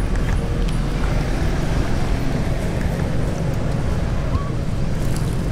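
Steady low rumbling outdoor noise, with one faint short chirp about four seconds in.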